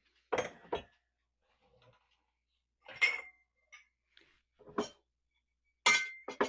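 Clean dishes and cutlery clinking and clattering as they are unloaded from a dishwasher and set down. There are about half a dozen separate knocks, a couple of them leaving a brief ringing note.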